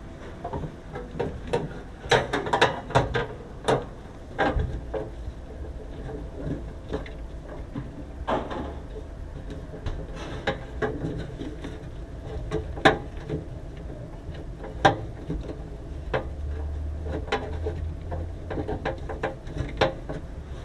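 Irregular clicks and knocks of parts and tools being handled, over a low steady hum.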